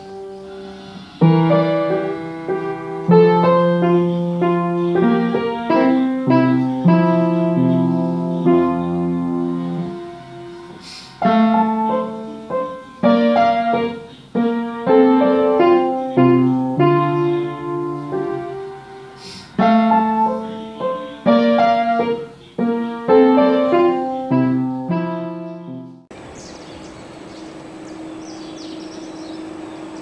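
Solo piano background music playing a gentle melody of single notes and chords. About 26 seconds in it stops and gives way to a quieter, steady background with a low hum.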